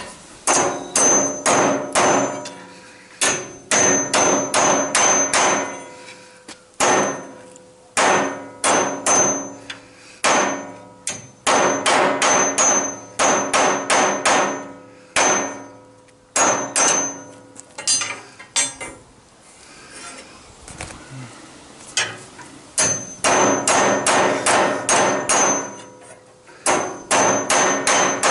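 Hammer striking metal in runs of quick blows, about two to three a second, with short pauses between runs. Each blow leaves a ringing metallic tone. The blows drop off for a couple of seconds about two-thirds of the way through.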